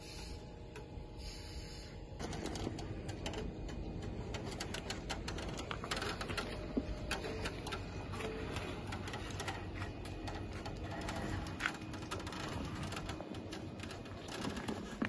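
Tesla Model 3 creaking as it rolls slowly and turns, a dense run of crackling creaks that starts about two seconds in. The cause is unknown to the owner.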